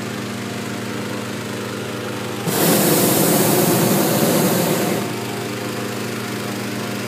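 A small petrol engine runs steadily, the kind that drives a balloon inflator fan. About two and a half seconds in, a loud rushing blast starts abruptly, lasts about two and a half seconds and cuts off, typical of a hot-air balloon's propane burner firing.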